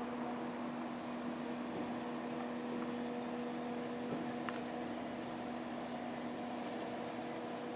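A steady machine hum at two low pitches over an even hiss, with a few faint ticks.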